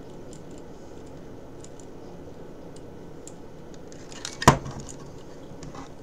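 Scattered faint clicks and light clinks of a fire alarm horn/strobe and screwdriver being handled on a wooden table during wiring, with one sharp knock about four and a half seconds in.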